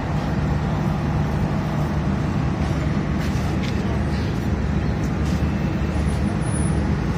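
Steady drone of a diesel engine running as passenger coaches roll slowly during shunting for coupling, with a few faint clicks in the middle.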